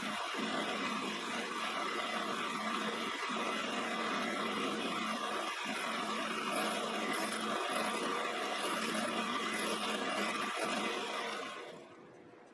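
Quorn tool and cutter grinder running, its cup wheel grinding the end flutes of a high-speed steel end mill with a steady noise. The sound falls away about a second before the end.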